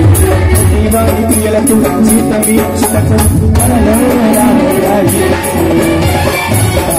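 Instrumental interlude of a Telugu Christian song: tabla playing a steady, fast rhythm under a keyboard melody.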